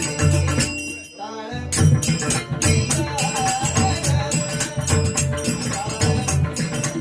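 Devotional bhajan music: taal hand cymbals jingle continuously over steady hand-drum beats, with singing. The drumming drops out briefly about a second in, then resumes.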